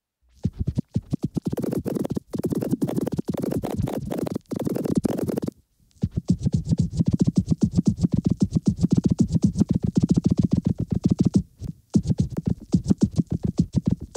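Muddy, distorted lo-fi music from a skipping record, stuttering in rapid repeated pulses, with a brief break about halfway through and another near the end.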